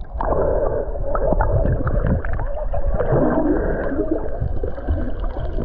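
Muffled underwater sound from a submerged camera microphone: gurgling water and bubbles over a steady low rumble, with all the higher sounds cut off.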